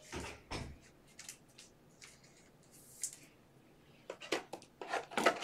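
Scattered light clicks and rustles of trading cards and their plastic holders and wrappers being handled, coming thicker and louder near the end.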